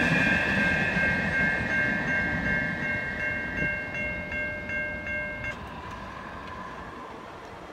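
Freight train rolling away, its rumble fading, under a railway crossing's warning bell ringing in quick repeated strokes. The bell stops suddenly about five and a half seconds in as the crossing clears.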